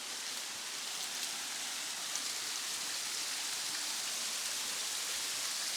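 Water rushing over a stepped rock cascade in a river: a steady, even hiss that builds slightly.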